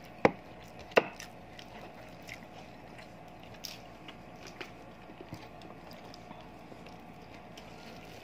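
Close-up eating sounds. A fork clicks sharply on the dish twice in the first second, then come quieter scattered ticks and the soft crunch of biting into a fried ngohiong spring roll.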